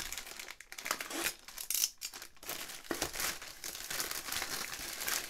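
Plastic mailing bag crinkling and rustling in irregular bursts as hands tear it open and handle the box inside.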